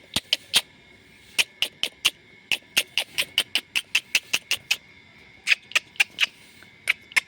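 A small animal's short, sharp, high-pitched squeaks, about two dozen in irregular runs with brief gaps between them.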